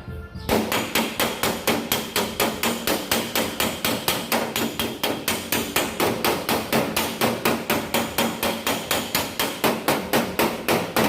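Rapid, steady hammer blows on metal, about four to five strikes a second: panel-beating the crash-damaged sheet metal of a truck body back into shape.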